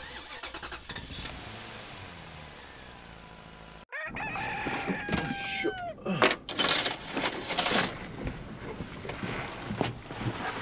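A short intro sound, then about four seconds in a rooster crows once: one long call that holds its pitch and falls away at the end. After the crow come loud rustling and knocking as someone moves about inside a truck cab.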